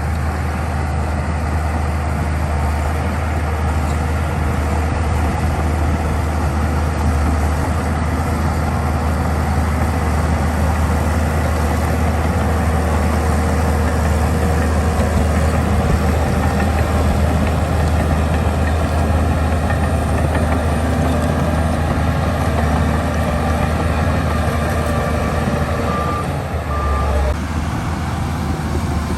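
Heavy earthmoving machinery running steadily with a deep diesel engine drone, with two short beeps near the end.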